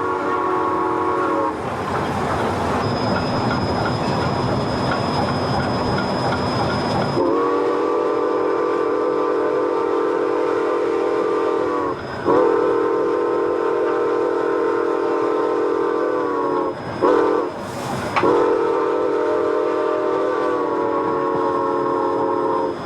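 Steam locomotive's whistle heard from the cab, blown in two long blasts, one short and one long: the standard grade-crossing signal. Between blasts the running locomotive and train rumble on.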